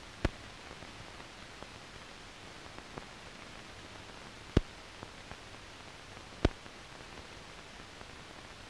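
Steady hiss of an old film soundtrack, broken by a few sharp clicks: three loud ones, about a quarter second in, just past the middle and about three-quarters through, and some fainter ones between.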